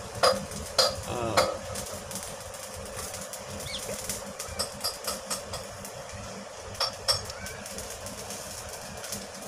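A few sharp metal clicks and knocks from hands working on an oil expeller's barrel and clamp bolts: clustered in the first couple of seconds and again about seven seconds in, over a steady background hum.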